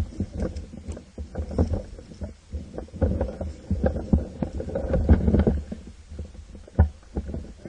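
Muffled, irregular low thumps and rustling: handling and movement noise on a camera mounted on an airsoft M4 rifle, with one sharp click a little before the end.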